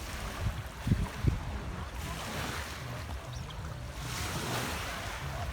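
Sea waves washing onto the shore, swelling twice. A few low bumps of wind hit the microphone about a second in.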